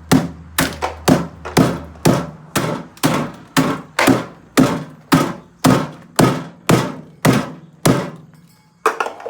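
Repeated heavy blows hammering on a refrigerator's body to break a piece out, about two strikes a second, each with a short ring. They stop near the end, with a pause and then one last blow.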